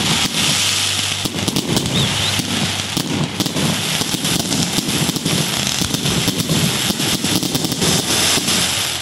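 Aerial fireworks bursting overhead: a dense, continuous crackling packed with many sharp pops.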